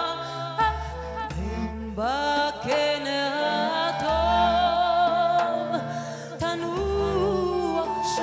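Live band music: a woman sings a wavering, ornamented melody with pitch glides over long held bass notes, with a few drum strikes.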